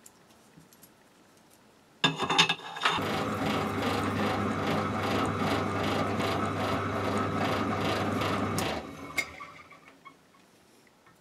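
Pillar drill starting up with a brief clatter about two seconds in, then running with a steady hum at slow speed while counterboring a hole in a steel block. It is switched off near the end and winds down.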